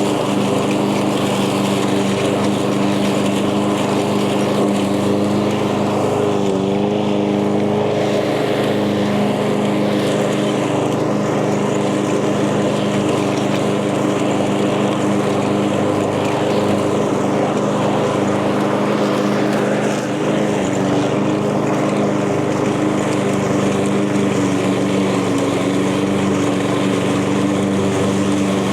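Echo 190cc gas lawn mower engine running steadily while cutting tall, thick grass, its pitch dipping briefly about six and a half seconds in.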